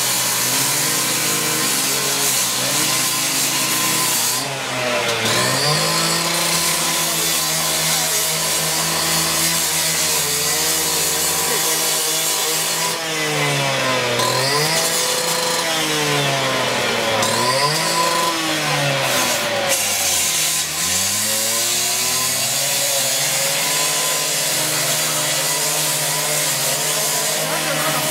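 Power cut-off saw running as it cuts into a steel roller shutter, throwing sparks. Its motor pitch sags under load and climbs back again, about four times in the second half.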